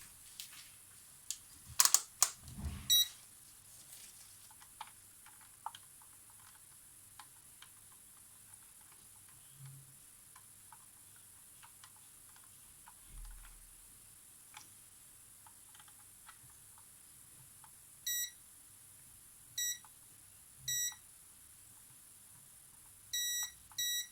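A few sharp clicks and knocks from handling small tools or parts, the loudest about two seconds in, then scattered faint ticks. In the last six seconds an electronic device gives five short beeps, all at the same pitch.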